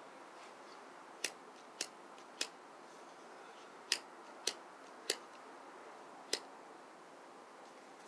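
Cigarette lighter struck again and again: seven sharp clicks at uneven intervals over a faint steady hiss.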